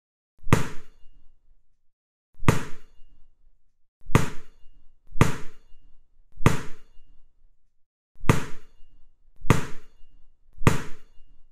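A bouncing ball's thuds as sound effects for the animation: eight separate hits at uneven gaps of one to two seconds, each trailing off briefly.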